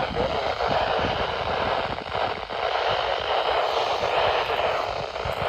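Steady radio static hiss from a weather radio receiver on a weak signal, drowning out the broadcast tornado-warning voice.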